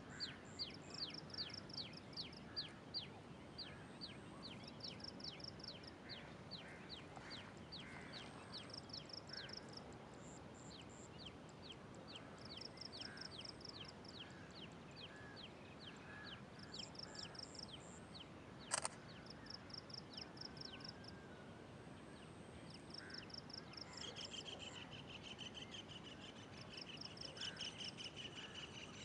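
Several birds calling over a faint steady hiss: quick falling whistled notes about twice a second at first, short runs of high pulsed chirps, and a higher trill near the end. A single sharp click about two-thirds through.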